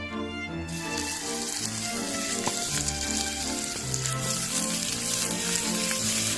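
Food frying in a hot pan, sizzling, starting suddenly about a second in, over background music.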